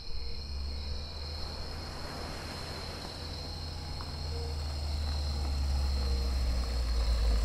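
Car-driving sound effect: a car engine runs with a low rumble that grows gradually louder, under a steady high-pitched chirring.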